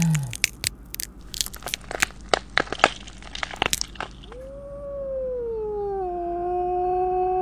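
Werewolf transformation sound effects: a growl tails off, then a quick, irregular run of bone-like cracks and snaps for about four seconds. A long howl begins after that, sinking slightly in pitch and then held steady.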